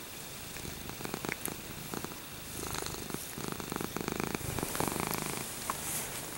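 A cat purring close by, the purr coming in spells of about a second each in the second half.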